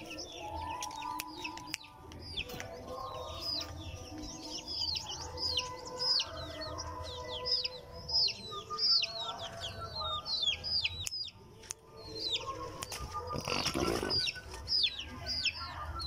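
Chicks peeping over and over in high, falling notes, several a second, with lower clucking from hens beneath. A short rustle about fourteen seconds in.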